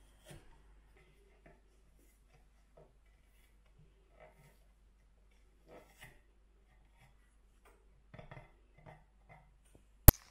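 Scattered soft knocks and rubbing as hands handle wooden chair legs and pull worn felt pads off their ends, with one sharp, loud click near the end.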